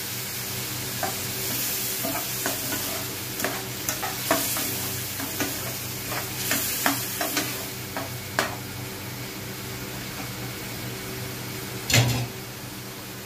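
Tomatoes, onions and spices frying in oil in a non-stick pan, sizzling steadily while a metal slotted spatula stirs them, clicking and scraping against the pan for the first eight seconds or so. Near the end comes a single louder knock, with a faint steady hum underneath.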